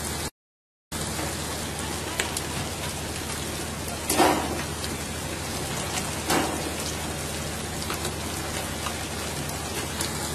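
Steady, rain-like hiss of water spraying and splashing along the side of a pole-and-line fishing boat. It cuts out completely for about half a second just after the start, and two short louder splashes stand out about four and six seconds in.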